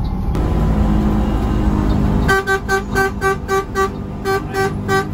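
A horn sounded in a rapid series of about a dozen short toots, roughly four a second with one brief pause, over the steady running and road noise of the bus.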